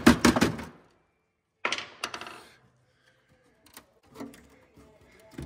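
Quick hammer taps on the car's underbody steel, about six a second, stopping under a second in. Then a single knock with a short scraping tail, followed by a few faint clicks and taps.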